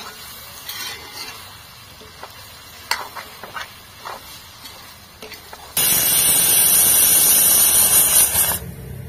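A metal spoon scrapes and clicks against an iron wok as curry is stirred over a light sizzle. A little past halfway, a pressure cooker's weight valve starts venting steam in a loud, sudden hiss that lasts about three seconds, the sign that the cooker has come up to pressure.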